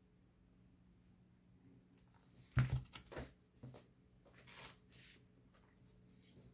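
A colouring book being closed and moved off the desk: a soft thump about two and a half seconds in, then a few lighter taps and paper rustles.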